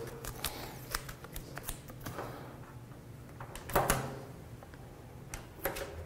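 Hands working a roll of vinyl fine-line masking tape on a painted hood panel, pulling out and cutting a strip: soft clicks, taps and rustles, the sharpest click about four seconds in.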